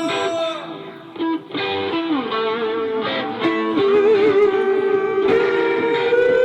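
Live music led by a guitar: plucked notes and held tones that waver in pitch, dipping quieter about a second in, then growing louder.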